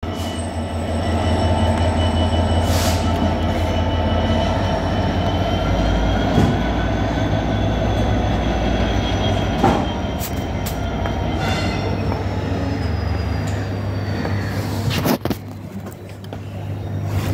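British Rail Class 66 diesel-electric locomotive running light with no wagons, its engine giving a loud, steady low drone with thin high whining tones that slowly rise and then fall. There is a sharp knock about fifteen seconds in, after which it becomes quieter.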